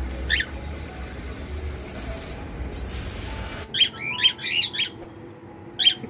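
Pet parrots in an aviary chirping: a single short call about half a second in, then a quick run of several sharp chirps near the end.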